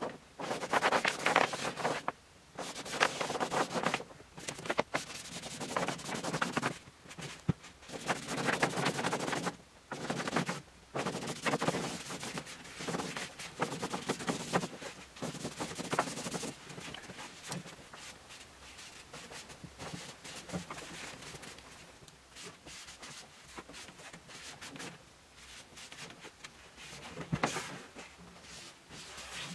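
Paper rustling and crinkling close to the microphone, in loud bursts of a second or two with short breaks in between. About halfway through it settles into fainter, steadier rustling, with one louder crinkle near the end.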